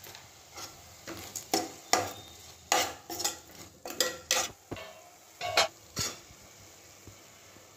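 Steel spoon stirring frying chopped onions and tomatoes in a metal pot: a quick, uneven run of clinks and scrapes against the pot that stops about six seconds in.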